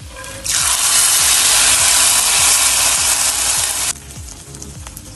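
Hot oil tempering of fried peanuts and curry leaves poured into a pot of pineapple curry, sizzling loudly as it hits the gravy. The sizzle starts about half a second in and cuts off suddenly after about three and a half seconds.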